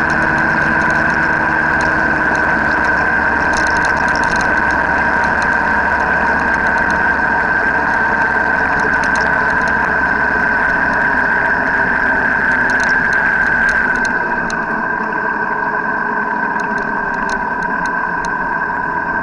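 Steady engine drone and road noise of a moving vehicle at cruising speed, with a constant high whine. About 14 seconds in, the low rumble drops away and the sound gets a little quieter.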